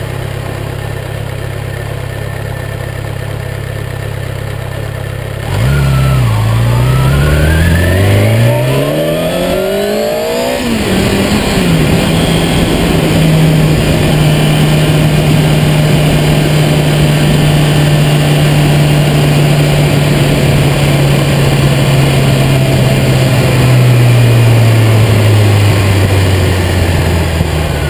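Sport motorcycle engine running with a low, steady note, then about five seconds in the throttle opens and the revs climb for several seconds before an upshift drops the pitch. It settles into a steady cruise with wind rushing over the microphone, and near the end the engine note falls as the bike slows.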